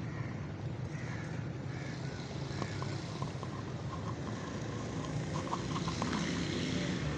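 Street ambience: a steady low rumble of traffic, with faint short scattered sounds over it.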